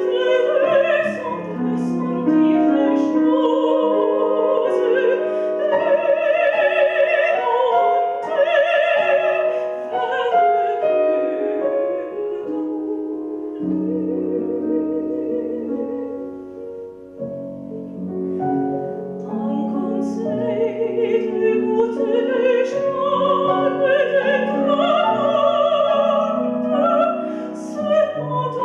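A woman singing in a classical, operatic style with a wide vibrato, accompanied by a grand piano. The singing grows softer for a few seconds past the middle, then swells again.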